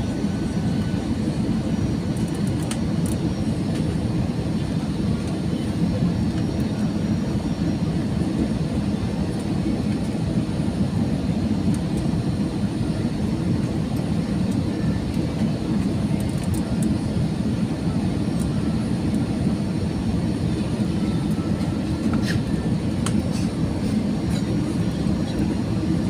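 Steady drone of engine and airflow noise inside the passenger cabin of an Airbus A320-214, with a few faint clicks about 22 seconds in.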